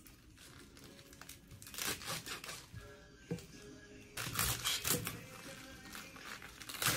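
A kitchen knife cutting through crisp bok choy stalks and leaves on a plastic cutting board: several crunching cuts at uneven intervals, a run of them about halfway through and a sharp one at the very end, over soft background music.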